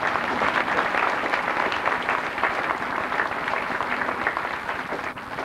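Audience applauding after a speech, dying away toward the end.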